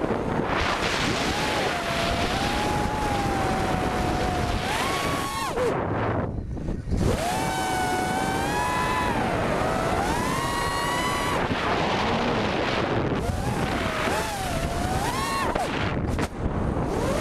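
Onboard audio of a 5-inch FPV freestyle quadcopter in flight. Its Cobra 2204 2300KV brushless motors whine over heavy wind noise, and the pitch rises and falls with the throttle. The whine drops away briefly about six seconds in, then climbs again as the throttle comes back up.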